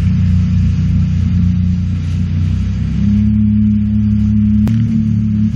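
Sea-Doo jet ski engine running steadily, its note changing to a higher, stronger pitch about three seconds in. A single sharp click near the end.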